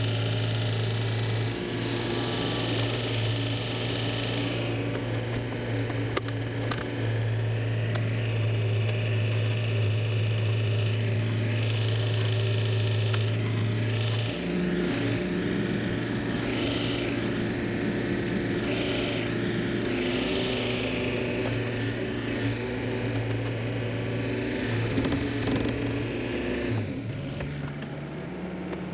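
Neuson 6003 excavator's diesel engine running steadily, with higher-pitched noise coming and going over the engine note. The note breaks briefly about halfway through and changes pitch near the end.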